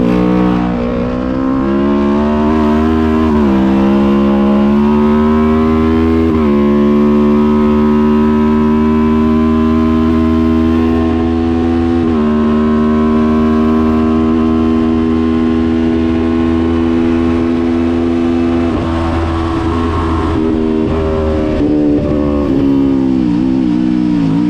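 Kawasaki Ninja 400 parallel-twin race engine heard onboard under hard acceleration, climbing in pitch and dropping sharply at each of several quick upshifts. It then holds high revs steadily for several seconds before the pitch falls and wavers as it is downshifted near the end.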